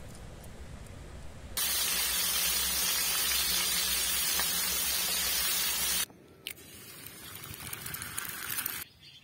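Fish pieces sizzling loudly in hot oil in a small frying pan; the sizzle cuts off suddenly about six seconds in. A quieter sizzle of an egg frying on a small griddle follows. Softer running water is heard in the first second and a half.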